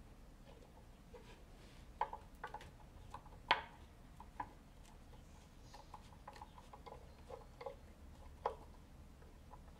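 Irregular light wooden clicks and knocks as hands fit and tap the parts of a wooden lectern, the loudest knock about three and a half seconds in.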